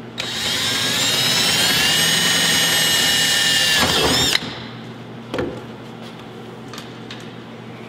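Hand-held power drill spinning up with a rising whine and running steadily for about four seconds while drilling a hole through a metal flaperon counterweight and leading edge, then slowing and stopping. A light click follows about a second later.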